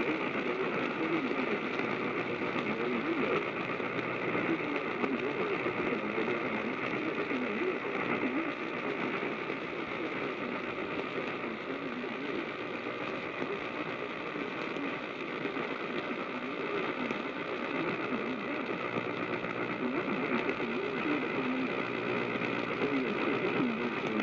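Radio broadcast audio: an indistinct, muffled voice under a steady layer of noise.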